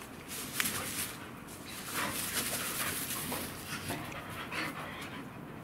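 Two American Staffordshire terriers panting and scuffling as they wrestle and chase, with a few short clicks of movement.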